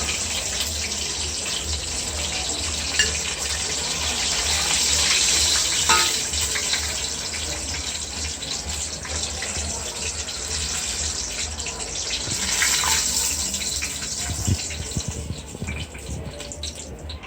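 Chicken pieces deep-frying in hot oil: a steady crackling sizzle, with a couple of sharp clicks, that thins out near the end.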